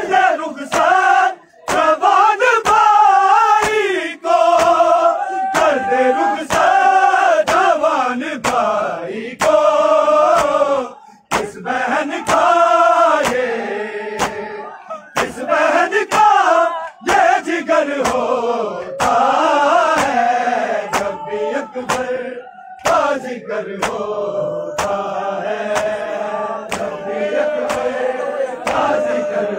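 Crowd of men chanting a noha, the Shia Muharram lament, in unison over a steady beat of sharp slaps from matam (hand-on-chest beating). Near the end the voices hold one long note while the slapping goes on.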